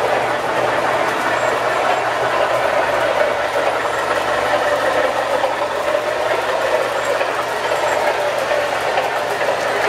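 MTH Premier O-gauge model trains running on three-rail track: a steady rolling rumble of metal wheels on rail, with a low hum underneath.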